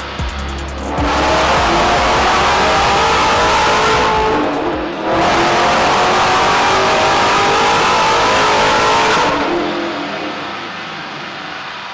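The 1969 Camaro restomod's engine revving hard under acceleration in two long pulls, its pitch rising through each, with a short drop about four seconds in. The sound then fades away over the last few seconds.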